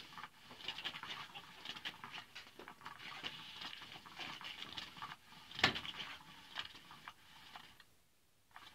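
Cat's Meow motorized cat toy running: its wand scratches and rustles about under the nylon cover in an irregular pattering, with one sharper tap a little past halfway. It falls silent briefly near the end before starting again.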